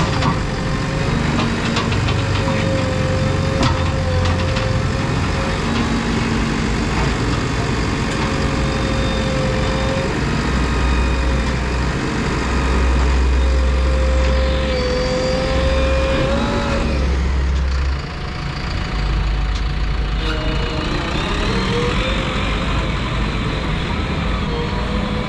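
JCB 3DX backhoe loader's diesel engine running under working load, its low rumble swelling and easing as the machine digs and loads mud. A whine above the engine wavers up and down in pitch. The level dips briefly about eighteen seconds in.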